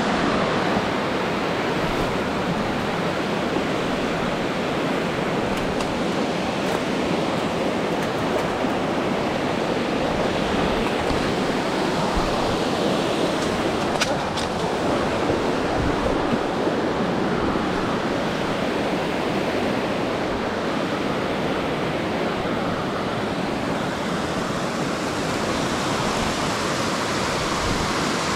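Creek water rushing over boulders in small cascades, a steady, even rush with one brief click about halfway through.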